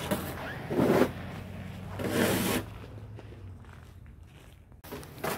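Rustling and scraping from a person walking in snow with a phone held close: a few short scuffs about a second apart, then only a faint background.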